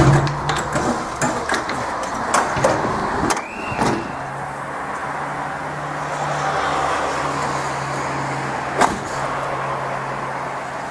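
Rattling and sharp knocks inside a railway carriage at a station, then a passenger train standing at a platform, giving a steady low hum. A single sharp knock comes near the end.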